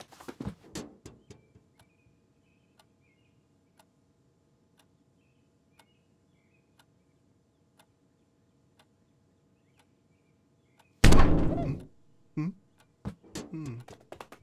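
Cartoon sound effects: a quiet room with a faint tick about once a second and a few faint chirps. About eleven seconds in comes a sudden loud thump lasting about a second, followed by a few smaller knocks.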